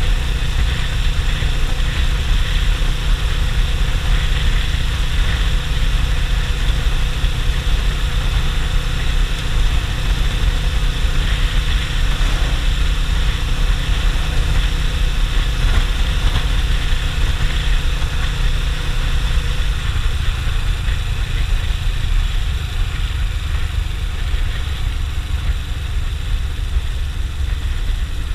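Suzuki GS500E's air-cooled parallel-twin engine running steadily while riding along the road, with heavy wind rumble on the camera's microphone.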